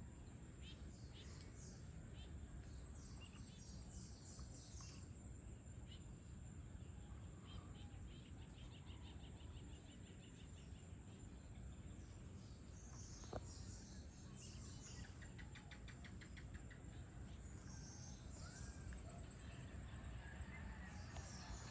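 Faint outdoor ambience: birds chirping on and off over a steady low background noise. A rapid ticking trill comes twice, and a single sharp click sounds just past the middle.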